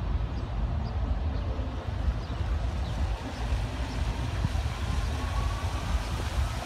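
Fountain jets in a large reflecting pool starting up, their water hiss and splash rising from about three seconds in, over a low, uneven rumble that is the loudest sound.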